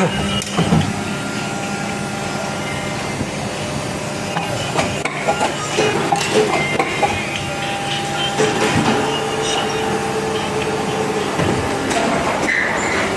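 Plastic moulding machine for toy car parts running: a steady hum and whine with repeated clanks and knocks, and a held whine for a few seconds past the middle.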